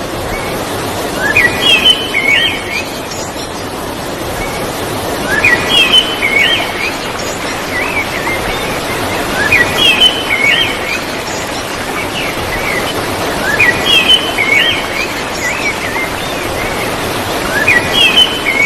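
Waterfall rushing steadily, with a bird singing the same short chirping phrase over it about every four seconds, five times in all.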